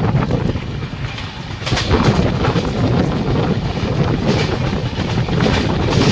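A train running past, its wheels clattering steadily on the rails.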